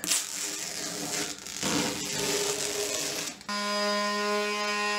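Rustling, scraping noise of blue masking tape being peeled off the edge of a cured resin tabletop, then, about three and a half seconds in, an electric detail sander starts abruptly and runs with a steady whine, sanding down the resin edge.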